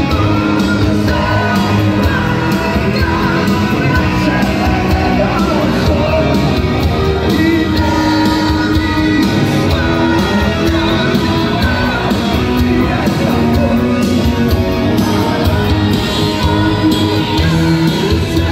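Live rock band with a lead singer performing, heard from within the audience in a large hall: drums, amplified instruments and vocals, steady and loud throughout.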